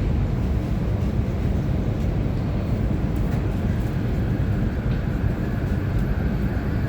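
Metro train running, heard from inside the car: a steady low rumble, with a faint high whine coming in about halfway through.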